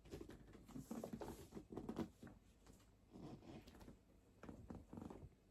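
Apple Vision Pro box packaging being handled as unboxing begins: soft, irregular rustling and scraping with a few light taps, in short clusters about a second apart.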